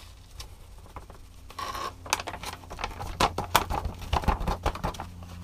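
Hands rummaging through dry paydirt in a collapsible bowl: gravel rustling and small river stones clicking against each other, sparse at first and busier from about two seconds in.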